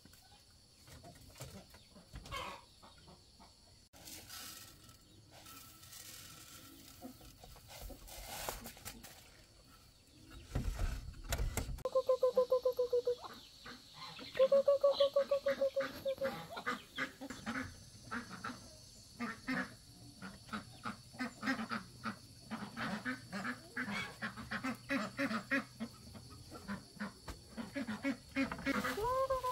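Domestic fowl calling. Two drawn-out, buzzy calls come about twelve and fifteen seconds in, followed by a long run of quicker, quieter calls, two or three a second, with another drawn-out call starting at the end. A low rumble comes just before the first call.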